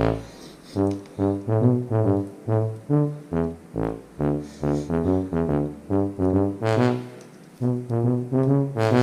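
Background music: a brass-sounding line of short, separate notes, several a second, pausing briefly now and then.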